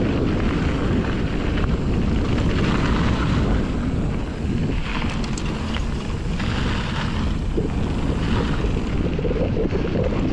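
Steady wind buffeting the microphone during a fast mountain-bike descent, with the Fezzari La Sal Peak's tyres rolling over a dirt trail, their hiss rising and falling in patches every second or so and a few light clicks about halfway through.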